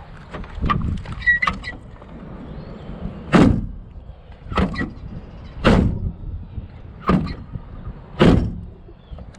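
Jeep Wrangler driver's door on new hinges being shut over and over: a few light clicks of the latch and hinges, then five heavy clunks about a second apart.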